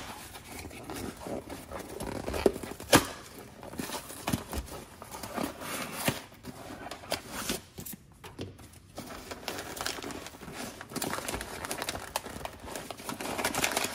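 Cardboard parcel box being torn open by hand, with irregular sharp cracks and tearing of the cardboard and the crinkling rustle of paper packing and a delivery note, briefly pausing about eight seconds in.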